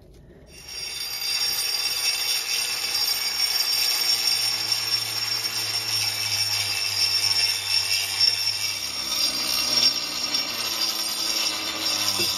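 Angle grinder grinding the cement edges of a doorway opening. It starts suddenly about half a second in and runs steadily, with a high whine over the rough grinding noise.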